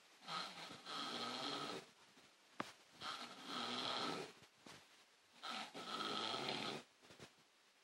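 A man snoring in his sleep: three long snores, one about every two and a half seconds, with quiet breaths between. There is a short sharp click just before the second snore.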